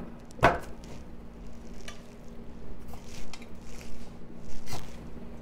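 Whole boiled potatoes set one by one into the cups of a metal muffin tin: a few separate soft knocks, the loudest about half a second in and another strong one near the end.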